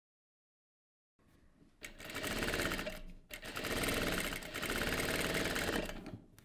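Jack 9100BA industrial sewing machine running at speed, its needle stitching in rapid even strokes while the gathering foot gathers the fabric. It starts about two seconds in, runs for about a second and a half, stops for a moment, then runs again for nearly three seconds.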